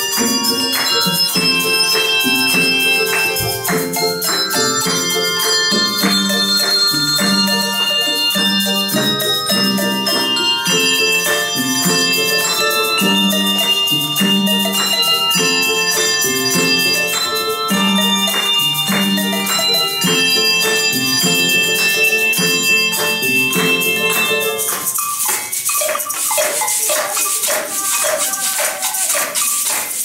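Handbell choir playing a samba arrangement: ringing handbells over a steady repeating pattern of low bass bells, with larger bells struck by mallets. About 25 seconds in the bell chords thin out and shakers take over with a bright rattling rhythm.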